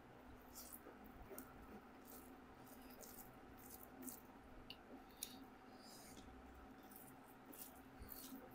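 Faint eating sounds: irregular small mouth clicks and smacks of chewing food, over a low steady hum.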